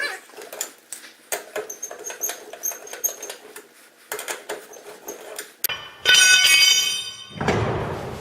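Lug nuts and rear wheel being worked off a 1949 Chevy pickup's hub: a run of small metal clicks and high squeaks, then a loud squeal lasting over a second about six seconds in, followed by a heavy scraping rumble near the end.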